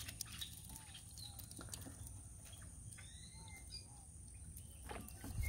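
Faint bird calls: a series of short arching chirps, with a few higher notes in the middle, over a quiet background with scattered light clicks.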